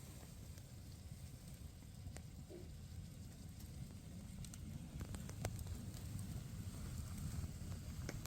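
Wood fire burning: a low, steady rumble with a handful of sharp crackling pops scattered through it.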